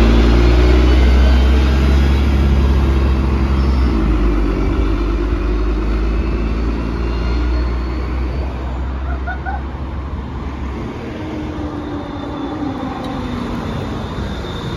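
Articulated city bus pulling away, its engine loud at first and fading as it moves off. Near the end an arriving tram's motors whine faintly as it comes into the stop.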